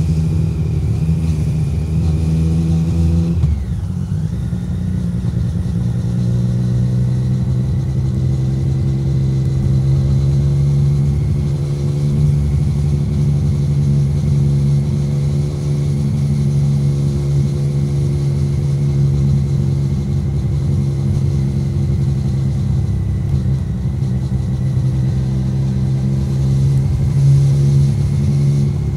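2017 Triumph Street Triple 765R's 765 cc inline three-cylinder engine through an SC Project SC1-R titanium exhaust, riding at low speed: the revs drop about three and a half seconds in, then the engine runs steadily at low revs.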